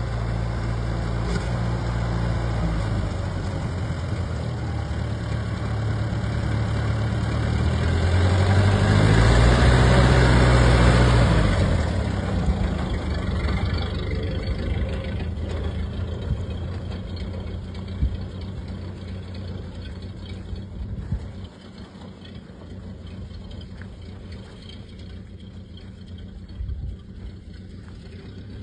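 Ford Model A's four-cylinder engine running as the car pulls away and picks up speed. It is loudest about ten seconds in, then fades steadily as the car drives off into the distance.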